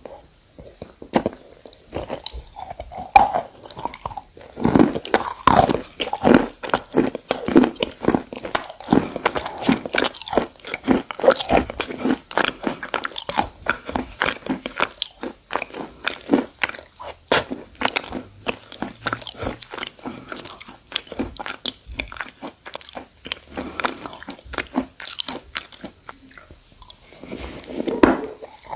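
Close-up biting and chewing of brittle white stone or clay chunks, many sharp irregular crunches and crackles one after another, with a brief lull near the end.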